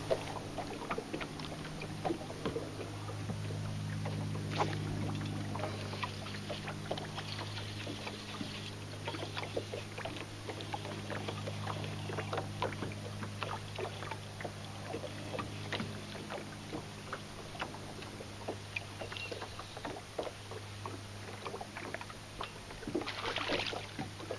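Electric trolling motor humming steadily, with small water slaps and ticks against the boat hull. A brief splash near the end as a hooked bass comes to the surface.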